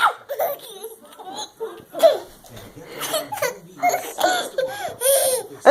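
A person laughing hard in repeated short bursts, cracking up at someone's sneezes.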